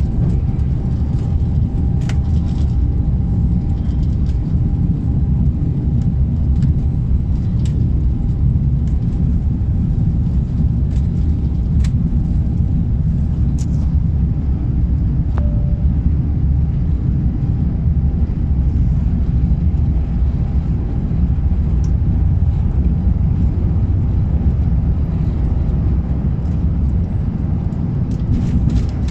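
Airliner cabin noise during landing: a loud, steady low rumble of the aircraft on the runway.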